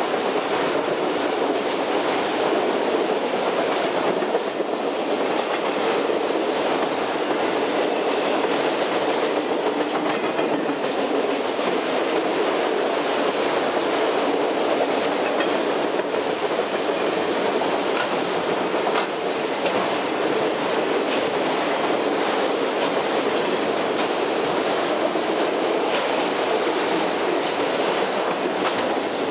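Freight train of autorack cars rolling past at steady speed: a continuous noise of steel wheels running on the rails, with a few faint clicks.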